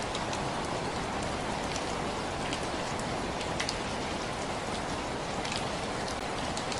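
Steady rain falling, an even hiss with scattered sharp ticks of individual drops hitting a surface.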